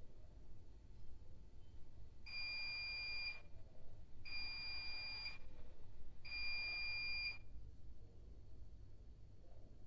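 Bosch Maxx 7 washing machine sounding three steady, high-pitched electronic beeps about a second long each and a second apart: the signal that the wash programme has finished.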